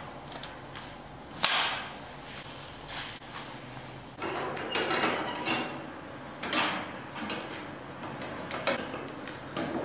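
A single sharp knock about a second and a half in, then, from about four seconds on, repeated scraping and swishing strokes as a string mop is worked in a plastic wringer bucket.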